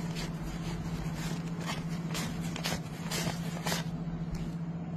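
Paper banknotes rustling and crackling as a stack of bills is fanned and flicked through by hand, with about seven short crisp rustles at irregular spacing. A steady low hum runs underneath.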